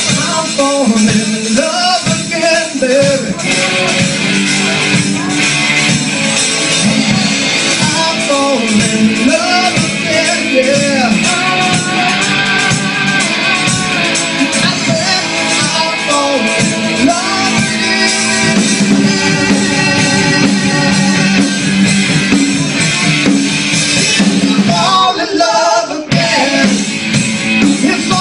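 Rock band playing with a singer's voice over guitar and drums, loud and continuous, with a brief break about 26 seconds in.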